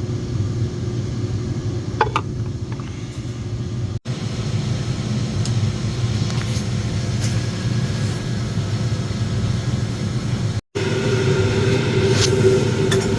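Steady low drone of running boiler-room equipment, broken twice by brief cuts. After the second cut, about three-quarters of the way in, a steady higher hum joins it.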